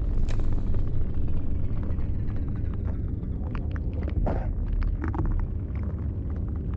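Logo-reveal sound effect: a steady deep rumble with scattered crackles and clicks over it, and a louder crackle about four seconds in.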